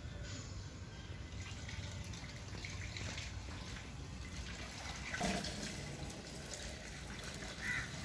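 Steady outdoor background noise with a few short bird calls, one about five seconds in and another near the end.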